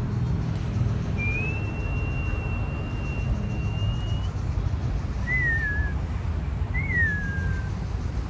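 A person whistling: one long held note that rises slightly at its end, then two short falling whistles, over a steady low rumble.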